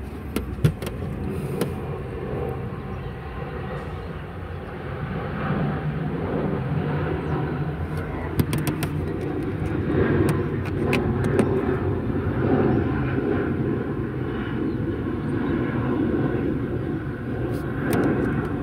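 A motor vehicle's engine running steadily, with scattered light clicks as plastic fuses in the car's fuse box are handled.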